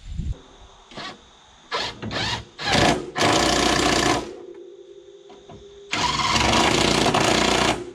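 Impact wrench run in a few short blips, then in two longer runs of about one and about two seconds.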